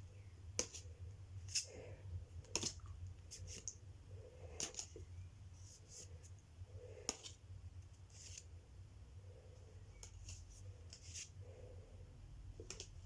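Pokémon trading cards handled and flipped through one by one: faint, irregular snaps and slides of card stock, a dozen or so light clicks with soft rustling between them.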